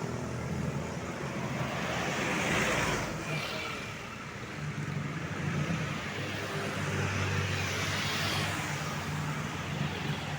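Road traffic: vehicles driving past, the noise swelling as one goes by about two and a half seconds in and again about eight seconds in, over a steady low engine hum.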